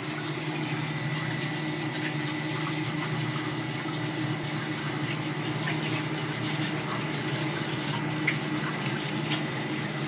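Pump running steadily on a drip-irrigation test rig with water flowing through it: a constant low hum and a thin high whine over a hiss of water. A couple of small clicks near the end.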